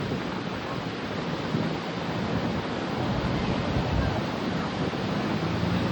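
Rough surf from a storm swell breaking steadily on the beach, with wind buffeting the microphone.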